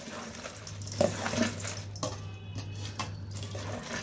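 Metal slotted spoon tossing puffed rice and chopped vegetables in a stainless steel bowl: a steady rustle with light scrapes of metal on steel.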